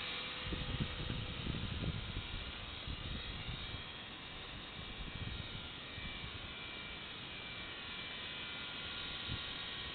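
HK 250 GT electric RC helicopter hovering low: a steady whir from its motor and rotor blades, with some low rumbling in the first two seconds.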